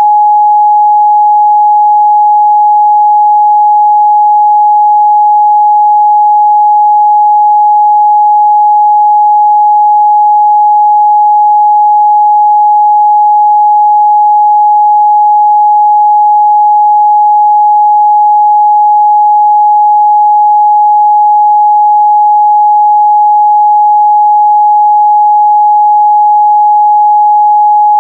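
Steady 838 Hz sine-wave test tone, one pure unchanging pitch held at a constant loud level.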